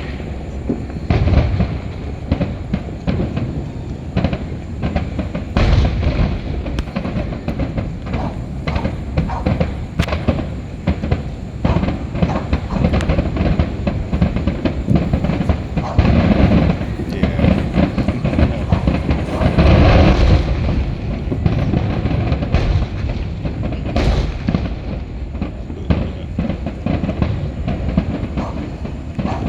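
Fireworks going off in a dense barrage: many sharp bangs and crackles in quick succession over a continuous low rumble, heaviest a little past the middle.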